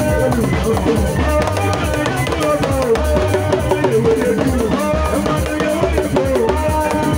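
Live band music: a drum kit keeps a steady beat under a bass line and melodic lines.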